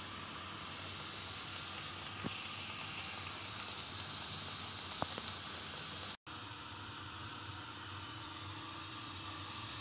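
Batter-coated eggplant slices deep-frying in hot oil, a steady sizzle with a couple of faint clicks. The sound breaks off for an instant about six seconds in, then the sizzle carries on.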